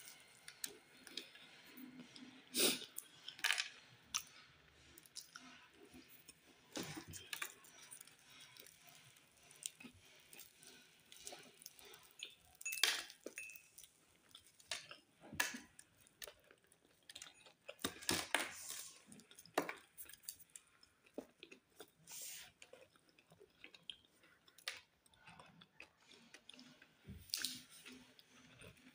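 A person chewing and biting crusty toasted bread up close, with irregular crunches and small crackles as pieces are torn and bitten.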